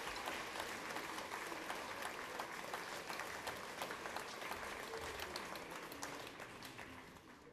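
Audience applauding, a dense patter of hand claps that fades out near the end.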